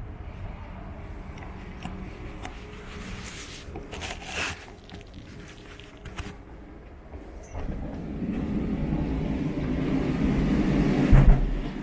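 Street traffic, with a heavy vehicle approaching and passing close by: its low rumble builds over the last few seconds, peaks with a sharp knock, and then falls away.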